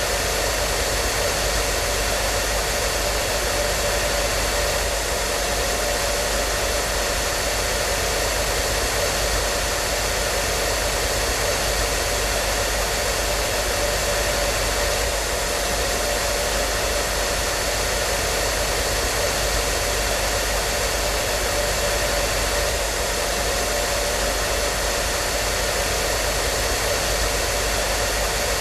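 Hair dryer running steadily, a constant even rush of air with a faint motor hum underneath and no change in speed.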